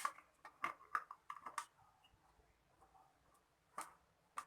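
Scattered crackles and clicks of packaging being pulled off a small clip fan, several in quick succession in the first second and a half, then a couple more near the end.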